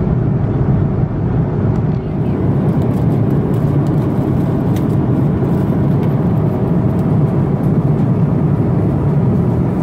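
Steady low rumble of airliner cabin noise in cruise inside an Airbus A330-200: engine and airflow drone, with a few faint light clicks.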